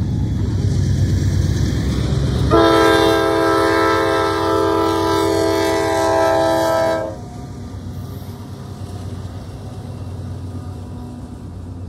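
Norfolk Southern freight train's lead diesel locomotive rumbling up to a road crossing, then sounding its air horn in one long blast of about four and a half seconds that cuts off sharply. After that comes the quieter rumble of the locomotives and cars passing over the crossing.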